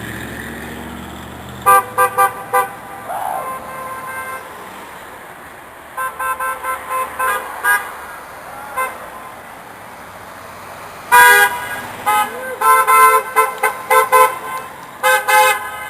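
Passing car horns honking in runs of quick short beeps, several cars in turn, over steady traffic noise; the longest and loudest run of beeps comes in the second half.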